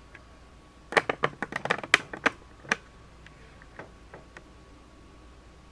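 Computer keyboard keys tapped in a quick burst of about a dozen clicks, then a few faint scattered taps.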